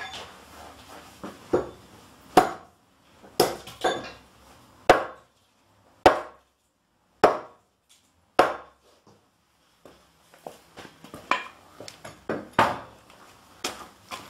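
A series of sharp knocks and bangs, about one a second, followed near the end by lighter clicks and knocks.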